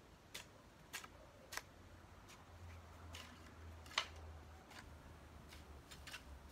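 A hoe striking and scraping into garden soil: a series of short, sharp strikes at uneven intervals, the loudest about four seconds in.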